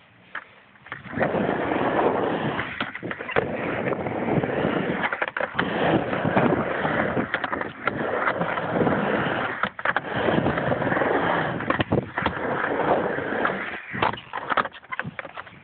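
Skateboard wheels rolling over pavement, with occasional short knocks. The rolling starts about a second in and runs steadily until near the end, where it grows patchier.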